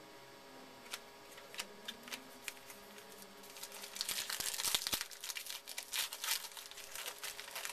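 Trading-card pack wrapper crinkling and tearing as it is opened by hand, after a few faint clicks; the crackling sets in about halfway through and keeps up densely.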